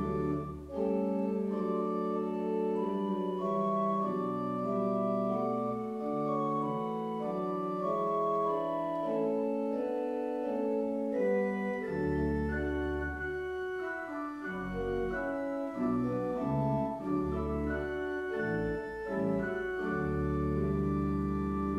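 Church organ playing slow, sustained chords. Deep pedal bass notes drop out early on and return about twelve seconds in.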